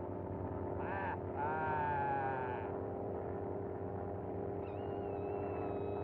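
Vintage cartoon soundtrack: a steady droning hum from the cartoon warplane's engine, with a short wavering cartoon-voice call about a second in and a longer one just after. Near the end a thin high whistle comes in, falling slowly.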